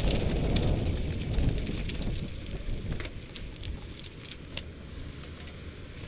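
Mountain bike rolling over a rough stony track, heard from a helmet camera: wind buffeting the microphone and tyre rumble, with scattered clicks and rattles. The rumble dies down steadily as the bike slows toward a stop.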